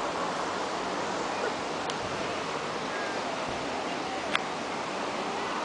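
Steady outdoor background hiss with faint, distant voices of people talking, and a sharp click about four seconds in.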